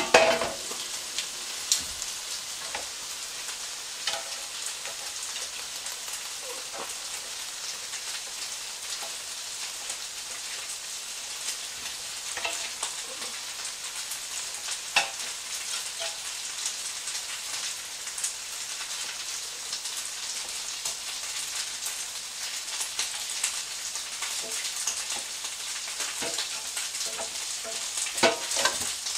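Chicken and pepper skewers sizzling steadily in an air fryer, a constant hiss with scattered small pops and crackles.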